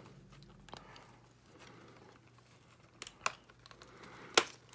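Plastic packaging crinkling, with a few short clicks as plastic ties holding a doll in its box tray are cut with nippers; the sharpest click comes near the end.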